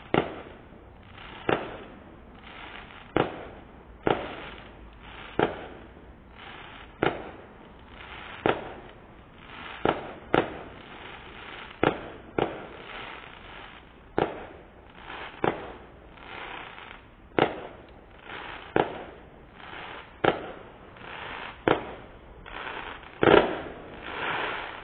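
Aerial fireworks bursting in a steady string, a sharp bang about every second and a half, each followed by a short crackling hiss; the loudest bang comes near the end.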